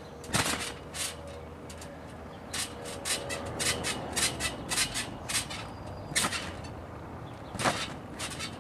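Trampoline creaking and clicking in a string of short, sharp sounds, coming quickly one after another around the middle, with two louder single clicks near the end.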